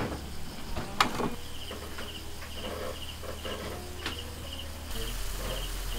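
Crickets chirping in short, evenly pulsed high trills that repeat throughout, over a low steady hum, with a couple of sharp clicks about a second in and near four seconds in.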